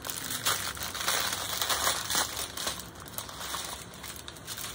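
Small clear plastic bags of diamond-painting drills crinkling and crackling as they are handled, busiest in the first couple of seconds and lighter after that.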